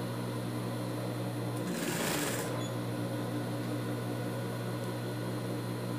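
Industrial straight-stitch sewing machine's motor humming steadily, with a brief noisy burst about two seconds in as the fabric is handled at the needle.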